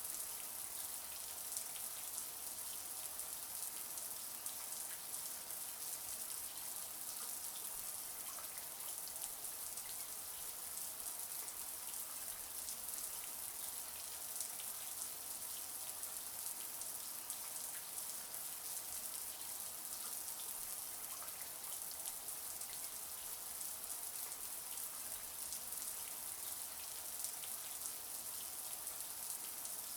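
Shower water running steadily, spray pattering on the tub or floor as an even high hiss with fine scattered droplet ticks.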